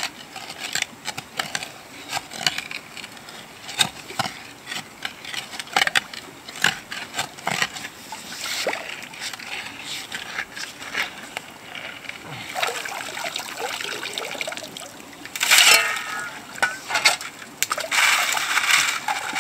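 Steel shovel digging into creek-bed gravel under shallow water: stones clicking and grating against the blade, with water sloshing around it. Past the three-quarter mark, a shovel load of wet gravel is tipped onto a sieve, giving a louder splashing rattle.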